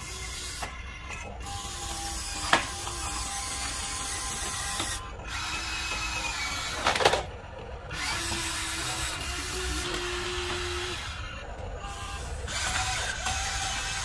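Huina RC excavator's electric motors and geared drives whirring and ratcheting as it slews, tracks and raises its boom and arm, with short rising and falling motor whines. A sharp click a couple of seconds in and a louder knock around the middle.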